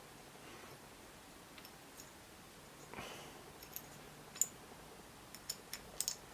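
Faint, sharp clicks and ticks of an Allen key working small screws into a thermal camera's gun-mount clamp. There is a soft rustle about three seconds in, then a quick run of clicks near the end.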